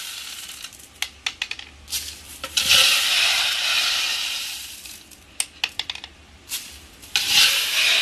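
Masses of small round beads in a plastic basket rattling and pouring as a dimpled tray is dragged through them and lifted out. The result is rushing swells of rattle, around the start, from about three seconds in, and again near the end, with scattered sharp clicks of single beads in between.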